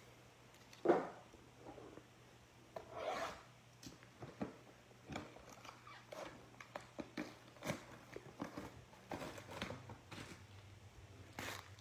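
Cardboard trading-card blaster box being handled and opened with nitrile-gloved hands: quiet rubbing and scraping of cardboard with many small clicks, and a sharper knock about a second in.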